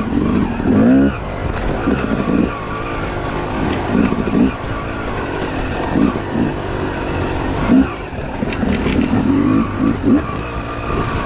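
Yamaha YZ250X two-stroke dirt bike engine revving up and down repeatedly, in short surges every second or two, as the throttle is worked on and off.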